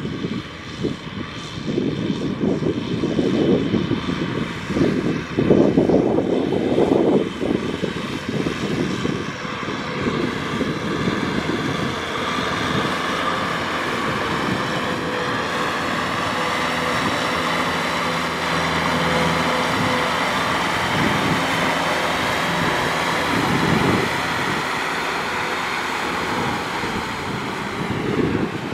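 Kubota M6040 tractor's four-cylinder diesel engine running under load as it pulls a trailer of rice sacks through mud. The sound is uneven at first, then settles into a steady drone.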